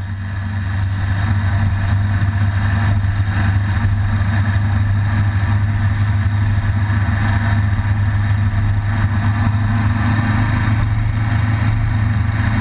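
Engine of a moving road vehicle running at a steady speed, a constant low drone that grows a little louder over the first second and then holds.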